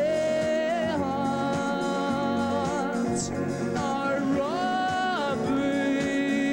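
Live band music: a male lead singer holds long notes that waver at their ends, with one higher note about halfway through, over guitar and drums.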